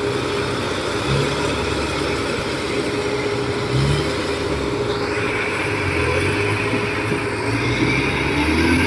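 Engines of a tracked tractor and rice combine harvesters running steadily as they work through a muddy paddy, with a constant whine over a low engine hum that grows somewhat louder in the second half.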